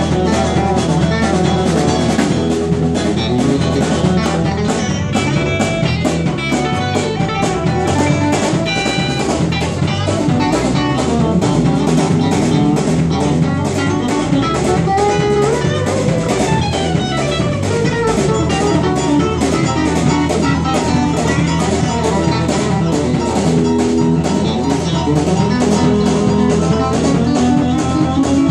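Live band warming up with an instrumental groove: a drum kit keeping a steady beat under electronic keyboards playing sustained chords and runs.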